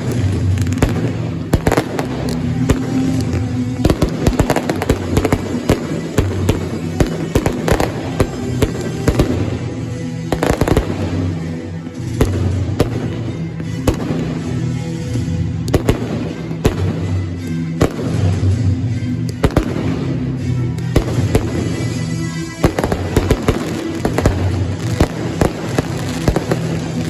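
A fireworks display: shells bursting and stars crackling, many bangs in quick succession, over loud music with held bass notes.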